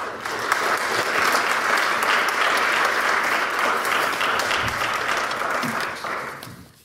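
Audience applauding steadily at the close of a talk; the clapping fades out near the end.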